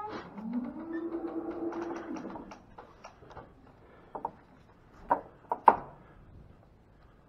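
One of the cattle lows once for about two seconds near the start. Several sharp knocks of wooden pen gates being handled follow, the loudest about five and a half seconds in.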